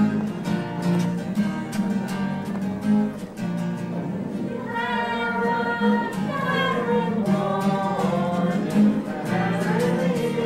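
Acoustic guitars strumming a steady rhythm, with singing coming in about halfway through.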